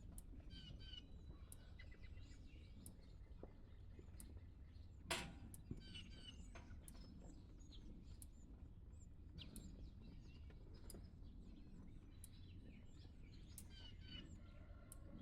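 Quiet rural ambience: small birds chirping in short repeated calls over a low steady rumble, with one sharp knock about five seconds in.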